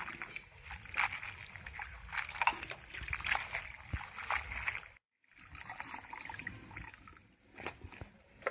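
Hands swishing chopped bottle gourd leaves and stems in a steel bowl of water: irregular sloshing and splashing, with a short silent break about five seconds in.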